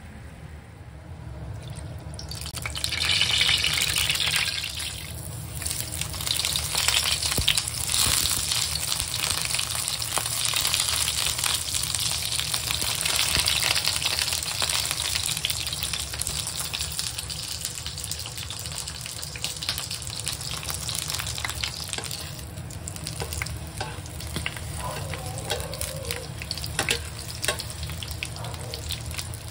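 Eggplant halves frying in hot oil in a non-stick pan, sizzling steadily. The sizzle starts about two seconds in, is loudest just after, and is softer over the last few seconds, with a few sharp clicks near the end.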